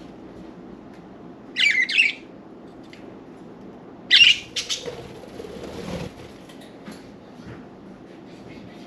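Budgerigars squawking: two short, loud bursts of harsh, high calls, about a second and a half in and again about four seconds in, with a few softer sounds after.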